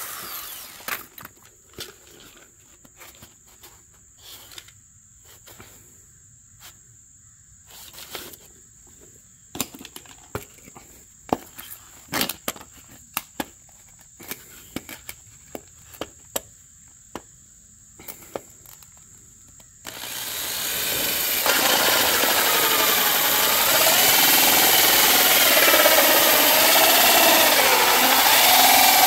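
Scattered light clicks and knocks of handling, then about twenty seconds in a power tool starts and runs loudly, its pitch wavering as it works.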